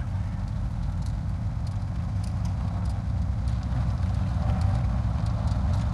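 Car running along the street, heard from inside the cabin: a steady low engine and road rumble.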